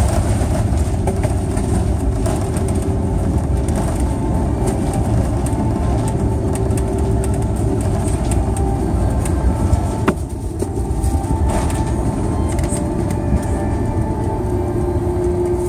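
Cabin noise of an Airbus A330 rolling out on the runway after landing: a steady low rumble from the wheels and engines, with small clicks and rattles and one sharp click about ten seconds in.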